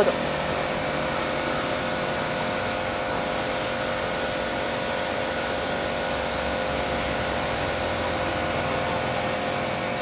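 Electric pressure washer running and spraying water: a steady motor whine under the hiss of the jet, unchanging throughout.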